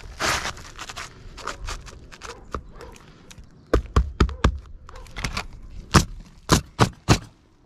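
Nails being driven into roof shingles: a quick run of about five sharp shots about four seconds in, then about five more spaced apart toward the end.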